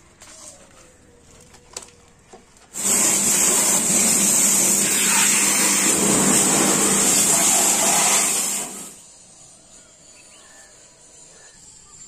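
Pressure washer spraying water onto a motorcycle: a steady, loud hiss of water over a constant motor hum, starting suddenly about three seconds in and cutting off about six seconds later.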